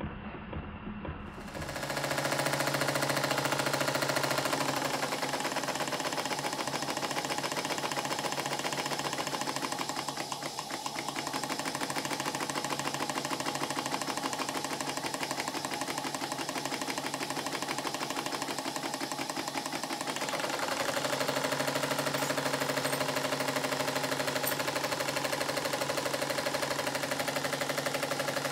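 Model horizontal single-cylinder steam engine running on steam, its exhaust and motion beating fast and hard like a machine gun. The sound shifts about two-thirds of the way through, taking on a steadier note.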